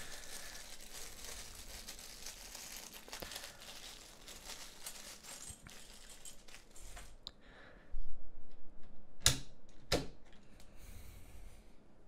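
A small plastic bag of spare keycaps crinkling as it is handled and opened. Near the end come louder handling sounds and two sharp plastic snaps about a second apart, as a keycap is pried off the keyboard.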